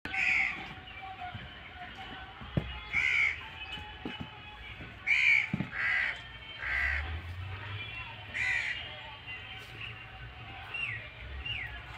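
A bird giving harsh calls, about six short calls spaced one to three seconds apart, with a few faint knocks between them and two small chirps near the end.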